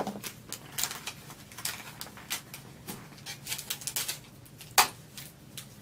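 Hard plastic parts of a shop vac being handled and set down: a run of small clicks, knocks and rustles, with one sharper knock about five seconds in.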